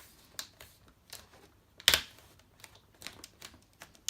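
Plastic screen bezel of an HP EliteBook 840 G3 laptop being pressed back on along the bottom edge, its clips clicking into place: scattered small clicks with one louder snap about two seconds in.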